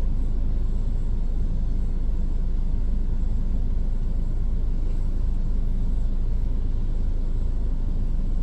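Steady low engine rumble heard from inside a vehicle's cab, even throughout with no sudden events.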